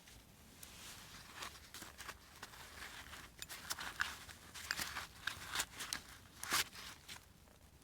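Light rustling and scattered small clicks of pocket gear being handled and taken out of a wallet.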